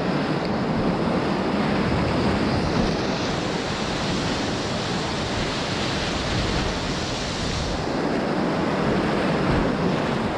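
Whitewater rapids rushing and churning around an inflatable raft: a loud, steady roar of water, with a brighter hiss in the middle few seconds.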